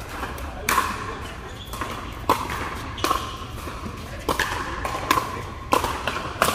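Pickleball paddles hitting a hard plastic pickleball in a fast rally: a string of sharp pops, about eight of them, less than a second apart, each ringing briefly in a large indoor hall.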